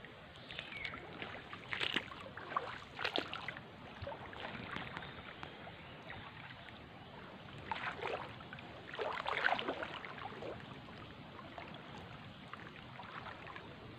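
Shallow swamp water sloshing and splashing in short irregular bursts over a faint steady background hiss.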